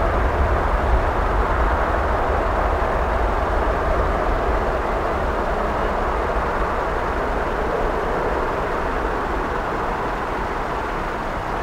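Twin turbofan engines of an Airbus A330-300 running as the airliner taxis away, a steady rumble and roar with a deep low end that slowly fades as it moves off.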